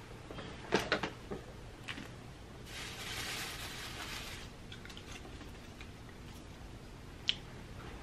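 Baby puffs shaken out of a plastic canister into a hand: a soft rattling rustle for about two seconds near the middle. There are a few light clicks about a second in and one more near the end.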